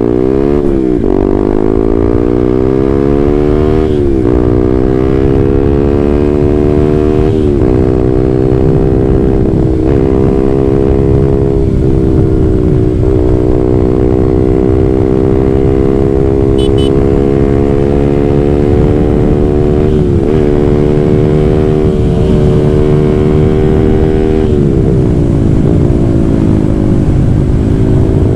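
Honda CB150R single-cylinder motorcycle with an aftermarket WRX GP6 silencer and stainless header, pulling away from a start: the exhaust note rises in pitch and drops at each upshift, about 4, 7.5, 10 and 12 seconds in. It then runs at a steady cruise, falls as the throttle is eased about 25 seconds in, and settles steady again.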